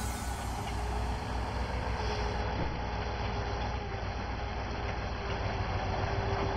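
Heavy logging truck's engine running under load, a steady low drone with no sharp events.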